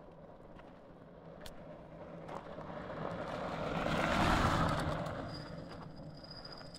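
A fat-tire bike riding past on a gravel road: the crunch and hiss of its tyres grows louder as it comes up, peaks as it passes close about four seconds in, then fades as it rides away.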